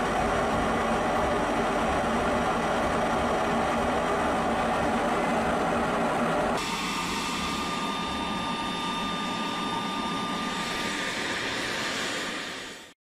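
Steady engine-like rushing noise that changes abruptly about six and a half seconds in to a thinner propeller-drone whine with steady high tones, as of Switchblade 600 loitering munitions in flight. It fades out near the end.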